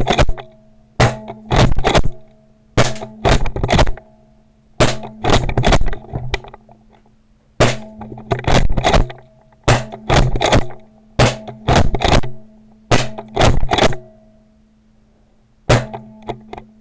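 A modified JAG Scattergun pump-action paintball shotgun being fired and pumped over and over: sharp cracks and clacks in quick groups, one group every second or two.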